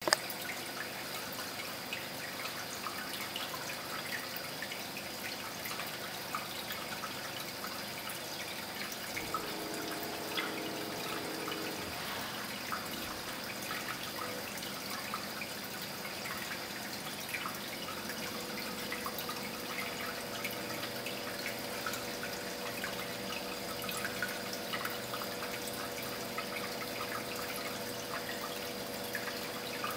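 Home aquarium water trickling and bubbling steadily, with many small drips and pops and a faint hum.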